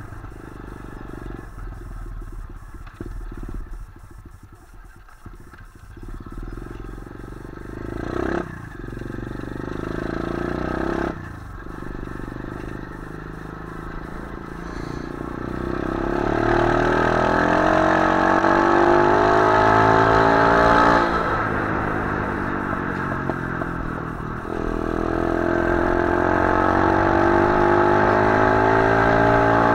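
125 cc pit bike's single-cylinder four-stroke engine under way. It runs at low revs for the first several seconds, with two short blips, then accelerates with a rising pitch from about halfway. The pitch drops briefly about two-thirds through and climbs again near the end.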